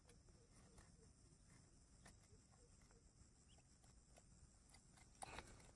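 Near silence, with faint scattered clicks and a brief crackle near the end: the sound of pliers handling a hook in a caught snakehead's mouth.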